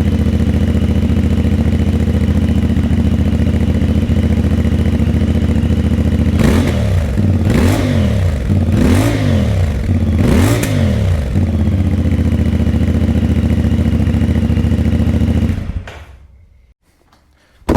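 CF Moto 450MT's parallel-twin engine idling through its exhaust, with four quick throttle blips in the middle, each rising and falling in pitch, before settling back to idle and cutting off abruptly.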